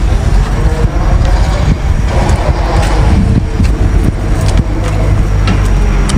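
Steady low rumble, with a few faint wet clicks from a boiled octopus being bitten and chewed.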